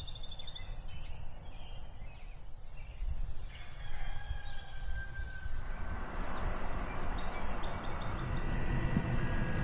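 Outdoor ambience: birds chirping over a steady low rumble of background noise, with chirps at the start and again near the end.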